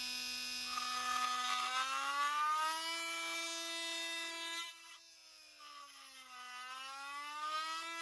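Milwaukee M18 FUEL 2836 brushless oscillating multi-tool plunge-cutting into wood, a steady buzz from its oscillating blade. The pitch climbs about two seconds in as it ramps up toward full speed under load in its auto mode, sags and falls around the middle, then climbs again near the end.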